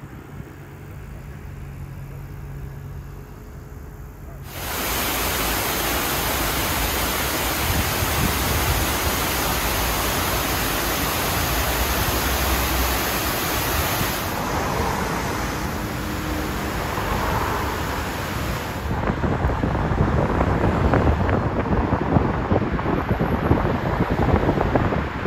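Water falling in thin streams down a stone wall, a steady loud hiss that cuts in suddenly about four seconds in. Near the end it gives way to a gusty rumble of wind on the microphone.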